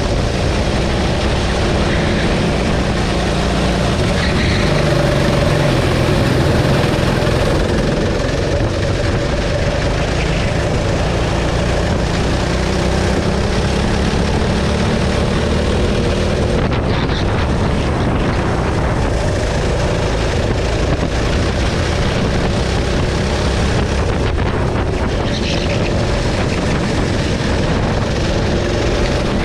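Racing kart engine heard from on board at race pace, running continuously with its note rising and falling as the kart accelerates and slows through the corners.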